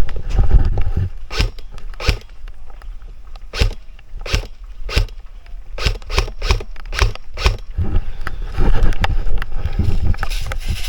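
Airsoft guns firing single shots, a dozen or so sharp pops at uneven spacing and faster around the middle, amid heavy movement and footsteps at the start and again near the end.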